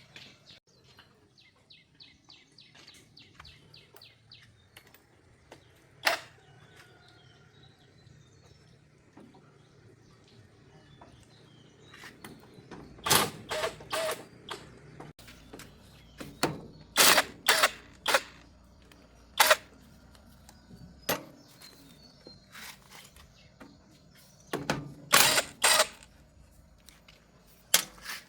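Hand tools clinking and knocking on metal during tractor repair work. A quick run of small ticks comes near the start, then a series of sharp metallic clanks, several of them in quick clusters.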